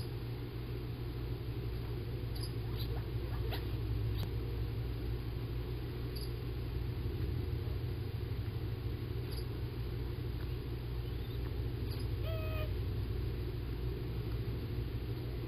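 Steady low rumble of outdoor background noise, with a few faint clicks scattered through and one short chirp about twelve seconds in.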